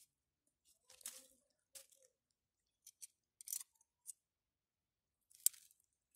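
Clear plastic freezer bag crinkling in short, separate rustles as it is handled, with one sharp click about five and a half seconds in.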